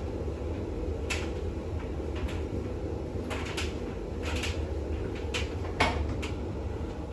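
Bosch WAX32GH1 washing machine running at the end of its intermediate spin, a steady low motor and drum hum. Irregular sharp clicks and knocks come through it about nine times.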